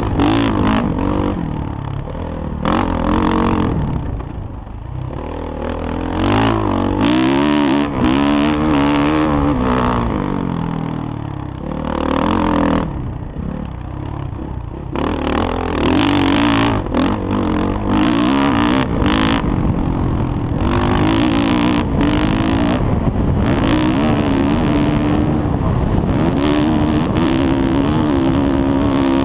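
Dirt bike engine heard from a helmet-mounted camera, revving up and down through throttle blips and gear changes. It backs off twice, then holds steady high revs for the last several seconds.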